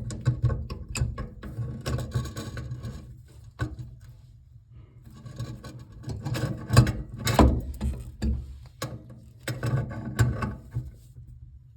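Pliers gripping and turning the leaking nut on a sink valve to tighten it, with clicks and knocks of metal tools in three spells and a short pause in between.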